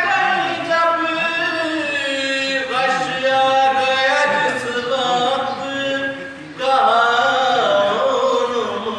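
A man chanting a nauha, a Shia lament, solo in long held, wavering melodic lines. There is a short break about two-thirds of the way through before the next line begins.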